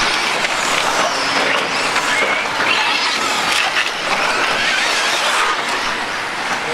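Electric TLR 22T 1/10-scale stadium trucks running on a dirt track. Their motors whine up and down in pitch as the throttle comes on and off, several at once and overlapping, over a steady hiss.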